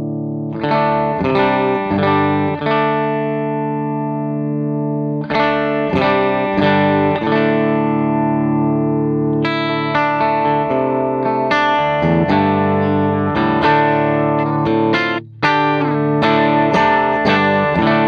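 Electric guitar, a Gibson Les Paul, played through an engaged JHS Whitey Tighty compressor pedal into a Vox AC30 amp. Chords are struck and left to ring, then a run of quicker picked notes follows. The sound cuts out briefly about three quarters of the way through.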